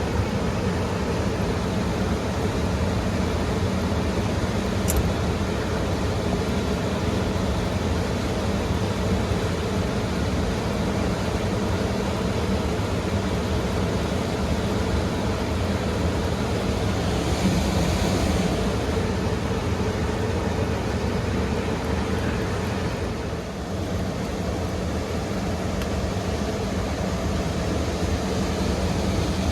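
A steady motor hum with a fixed low drone, a brief hissy rush about two-thirds of the way in, and a single faint tick near the start.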